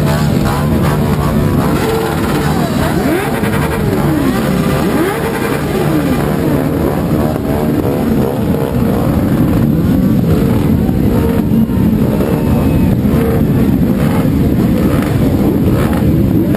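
Several motorcycle engines running close by in a crowd and being revved, with pitch rising and falling on each rev over a constant engine rumble.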